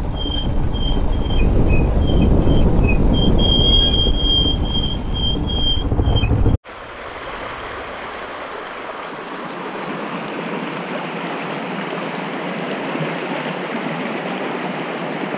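Dirt bike rolling down a rocky trail, its engine and tyres rumbling, with a high squeal that comes and goes. About six and a half seconds in, the sound cuts abruptly to a mountain creek rushing steadily over rocks.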